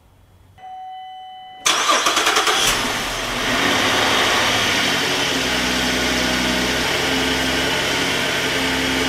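A steady electronic chime tone sounds for about a second, then a GM car's engine cranks and catches, flaring briefly before settling into a steady idle.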